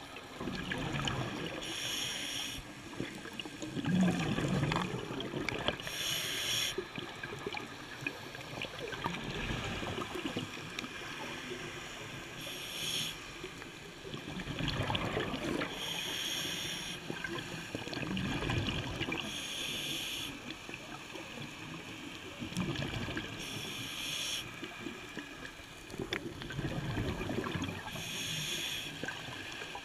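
Muffled underwater water noise with slow surges, and a short hiss about every three to four seconds.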